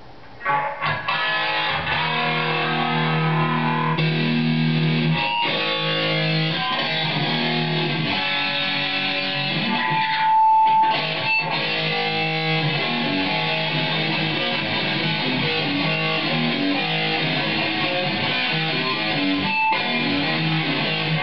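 Electric guitar played through a Line 6 PodXT modelling preset into a Crate Power Block amplifier, a continuous run of changing notes starting about half a second in. About ten seconds in a brief, steady high-pitched feedback tone sounds, from playing too close to the amp.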